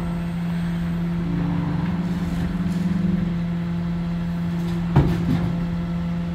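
Rear-loading garbage truck running steadily while its hydraulic cart lifter tips a yellow waste cart into the hopper, with a second tone stepping up in pitch in the first few seconds. One sharp loud clank about five seconds in, followed by a smaller knock, as the cart and lifter bang against the truck.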